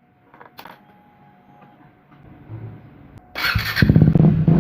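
KTM 390 Duke's single-cylinder engine starting a little over three seconds in, with an aftermarket slip-on exhaust, then running at a steady idle. Before it starts there are only a few faint clicks.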